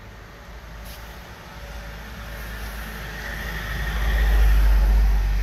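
A vehicle driving past, growing steadily louder to a peak near the end and then starting to fade, with a heavy low rumble.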